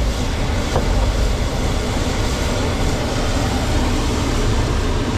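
Loud, steady engine noise from heavy military vehicles: a landed LCAC hovercraft and a military cargo truck moving off past its ramp.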